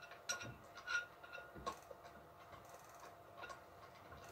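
Irregular light clicks and taps from hands handling the parts of a small resin 3D printer, with a faint steady tone under them.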